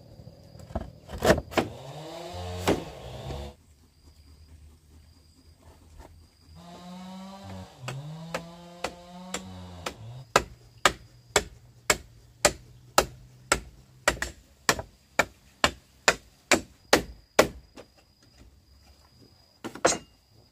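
A steady run of sharp blows, about two a second for some seven seconds, like a hand tool striking wood. In the first half come a few louder knocks and drawn-out pitched calls.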